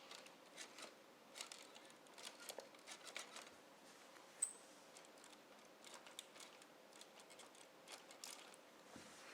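Near silence: faint room hiss with scattered small clicks and ticks, one sharper tick about halfway through.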